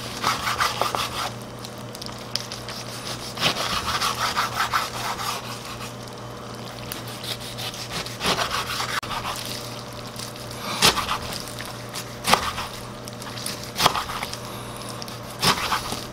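Kitchen knife chopping aged kimchi on a wooden cutting board: bursts of quick slicing strokes, then slower single chops that knock sharply on the board, over a faint steady hum.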